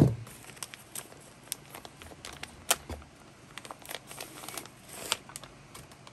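A sharp thump right at the start, then thin plastic packaging crinkling and crackling as it is handled and pulled open to take out a t-shirt.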